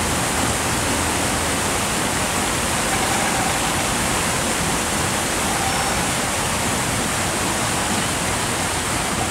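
Steady rush of turbulent water pouring over a salinity-control sluice gate and churning into white water.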